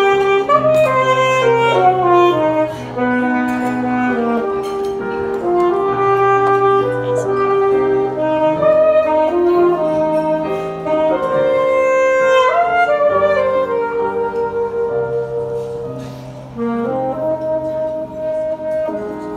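Alto saxophone playing a gentle ballad melody over piano accompaniment. The music grows quieter over the last few seconds.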